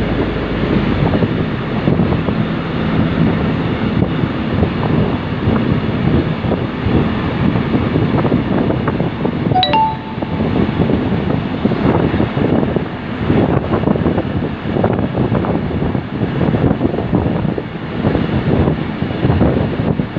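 Wind buffeting the microphone over the steady rumble of an open rail work vehicle travelling along the track. A brief ringing ding sounds about ten seconds in.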